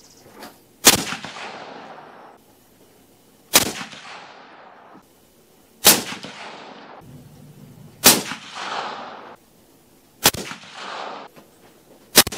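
Six suppressed rifle shots from a Ruger American Alaskan bolt-action in .338 Win Mag fitted with a Banish 338 suppressor, about two seconds apart. Each is a sharp crack followed by a decaying echo lasting about a second.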